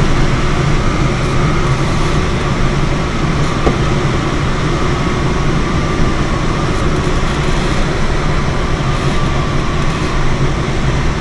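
Steady rush of air past the cockpit canopy of a K13 glider in flight, a loud, even wind noise with no engine.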